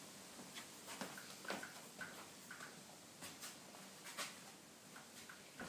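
Dog gnawing on a whole raw carrot: faint, scattered crunches and clicks.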